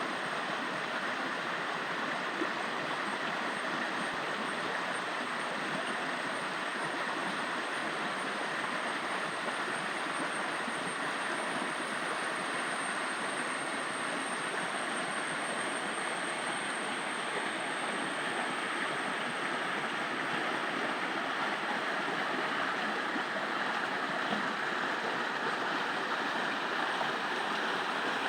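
Stream water flowing and rushing in a steady, even wash, with a thin high steady tone above it.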